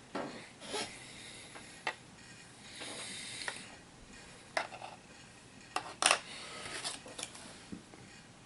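Plastic miniature figures and game pieces being handled on a table: scattered light clicks and taps, with a short rustle about three seconds in.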